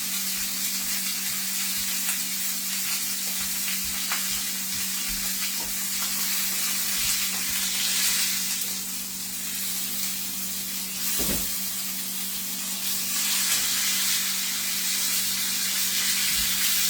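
Chuck roast searing in hot olive oil in a pan on high heat: a steady, dense sizzle and spatter. A single thump about 11 seconds in, and a low steady hum underneath.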